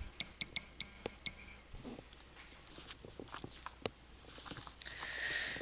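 Stylus tapping and sliding on a touchscreen while handwriting a label: a run of light, irregular clicks, with a soft hiss near the end.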